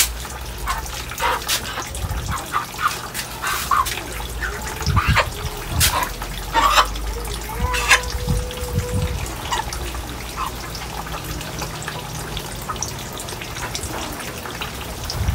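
Water dripping and splashing, with scattered clicks and knocks from handling, over a low steady hum.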